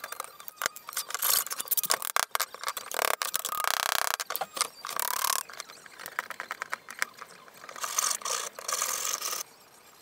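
Aviation tin snips cutting thin copper cladding strips: a run of crisp clicks and crunching cuts that stops about nine seconds in.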